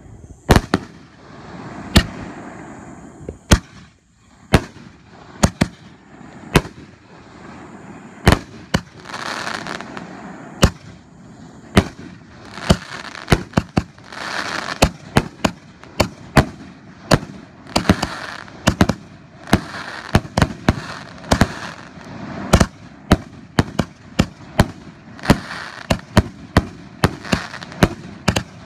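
Consumer aerial fireworks bursting overhead: a long run of sharp bangs, irregular and coming thicker in the second half, with a crackling hiss between the reports.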